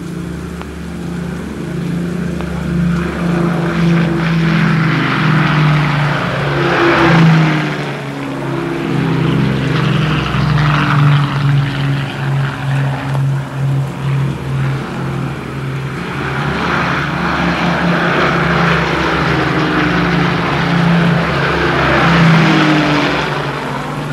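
Propeller aircraft engines droning steadily, swelling loud as planes pass about seven seconds in and again near the end, the engine pitch dropping as each goes by.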